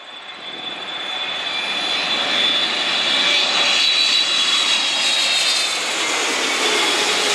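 Jet airliner's engines passing close, swelling over the first two seconds to a loud, steady run with a high whine from the fans.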